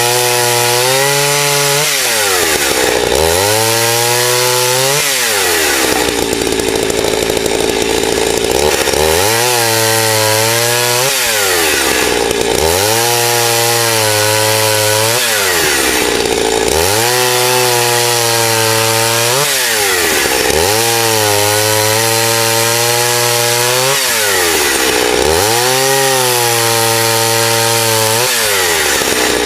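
Two-stroke chainsaw repeatedly revving up, holding a steady, lower pitch while it cuts under load, then dropping back, each cut a few seconds long, about eight times over.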